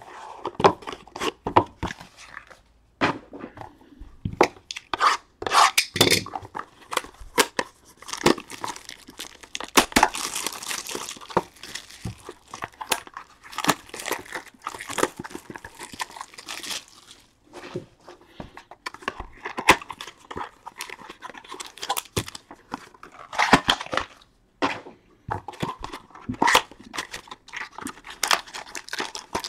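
Trading-card pack packaging being torn open and crinkled by hand, with irregular crackling and rustling and short clicks of cards and cardboard being handled.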